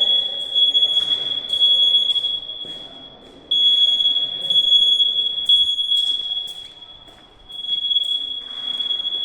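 Fire alarm hooter sounding a steady, piercing high-pitched tone under test, cutting out briefly about three seconds in and again about seven seconds in.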